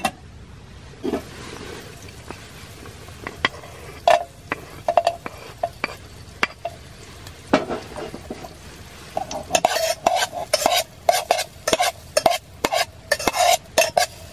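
Chopped garlic sizzling in oil in a metal camping pot on a canister gas stove. A sharp clink as the pot is set down, then a metal utensil scrapes and clinks against the pot as the garlic is stirred, scattered at first and busy through the last five seconds.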